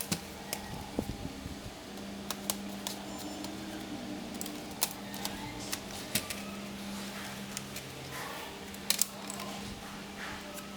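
Scattered sharp clicks and small metallic taps from laptop parts and screws being handled, with a double click about nine seconds in being the loudest, over a steady low hum.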